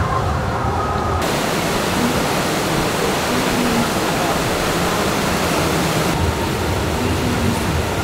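Steady rush of water flowing through a Fabbri river rapids ride's raft channel, a continuous even noise. Its tone shifts slightly about a second in and again near six seconds.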